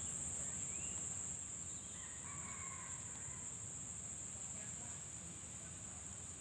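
Steady high-pitched chorus of crickets, with a faint distant rooster crowing about two seconds in.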